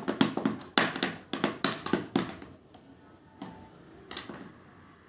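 A baby banging a spoon against something: a quick run of about ten knocks over the first two seconds, then two fainter knocks further on.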